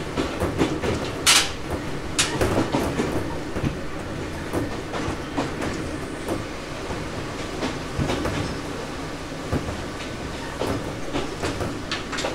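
Interior running sound of an Ohmi Railway 800-series electric train (motor car Moha 1809, a rebuilt Seibu 401 series): a steady rumble with the wheels clicking over rail joints, and a short sharp hiss about a second in.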